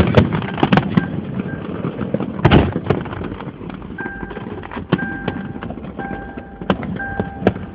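Fireworks popping and banging at irregular intervals, with a heavy bang about two and a half seconds in. From about four seconds in, an electronic beep repeats about once a second alongside the pops.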